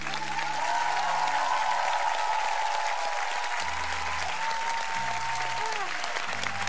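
Studio audience and judges clapping, with soft sustained background music notes underneath.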